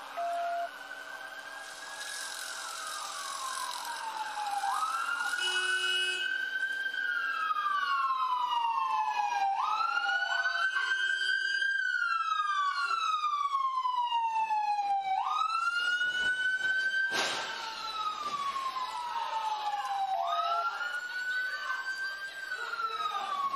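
Police car siren in wail mode, sweeping up and down about every five seconds and growing louder as the patrol car arrives. One sharp bang cuts through about three-quarters of the way in.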